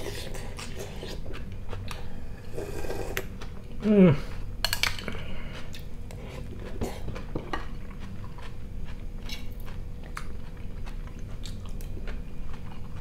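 Metal spoon clinking against a ceramic bowl while broth is slurped off the spoon, with mouth and chewing sounds. About four seconds in comes a short falling "mmm", the loudest sound.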